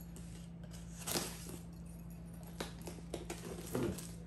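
Handling of a cardboard box with a few light taps and knocks, then a box cutter slicing along the packing-tape seam near the end.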